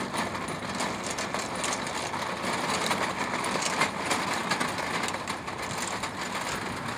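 Steady mechanical-sounding noise with many small clicks and rattles through it.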